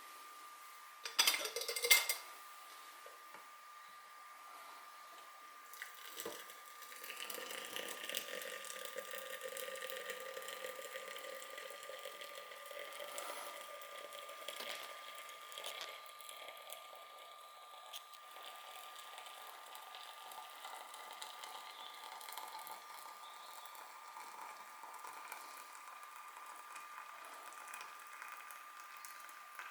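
Electric kettle heating water: a hiss from the water that swells about six seconds in and then holds, with a faint steady high tone. About a second in there is a brief clatter.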